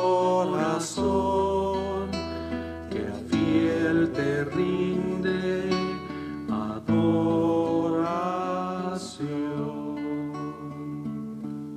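A hymn sung to acoustic guitar accompaniment over held bass notes, getting quieter toward the end.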